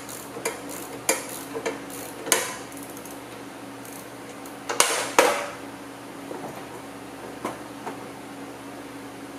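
Hand ratchet and socket on a steel bumper-bracket bolt: irregular metal clicks and clinks. A louder metallic clatter comes about five seconds in.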